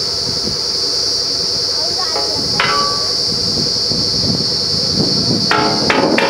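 Water-well drilling rig running steadily, with a high-pitched whine over a low engine rumble. Steel drill pipe clanks and rings against the rig, once about two and a half seconds in and several times near the end.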